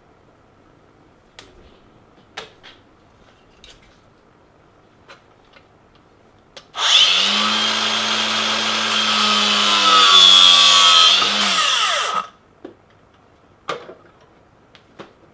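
Angle grinder with a cut-off disc starting up about seven seconds in and cutting through a fuel line clamped in a bench vise for about five seconds, then winding down. Light clicks and knocks come from handling the vise and hose before and after the cut.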